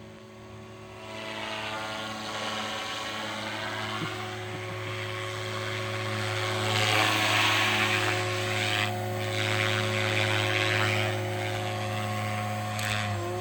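Goblin 380 electric RC helicopter in flight: a steady whine from its motor and rotor at a held pitch, with rotor-blade rushing that grows louder over the first several seconds and is loudest around the middle.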